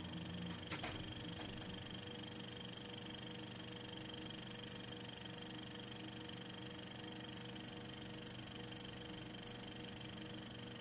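Faint steady hiss with a low hum and thin steady whines, like background room tone or electrical noise; a couple of soft clicks about a second in.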